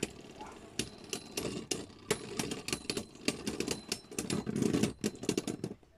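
Two Beyblade spinning tops whirring against the floor of a clear plastic stadium and clacking into each other in rapid, irregular clicks. The whirring and clacking cut off abruptly near the end.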